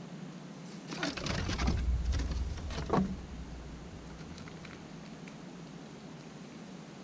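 Scratching and rustling of an eastern gray squirrel's claws as it scrambles up onto a concrete stand, over a low rumble. It lasts about two seconds and ends in a short sharp sound, then only a few faint ticks follow.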